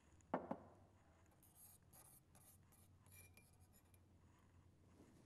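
Two quick clinks of glassware about a third of a second in, then soft scraping and rubbing as coconut oil is scooped out for a homemade cream.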